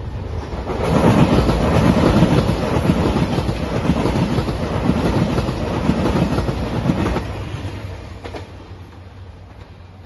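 JR Shikoku 2700 series diesel express train passing close by, its engines running and its wheels clattering over the rail joints. The noise swells about a second in, stays loud for some six seconds, then fades away.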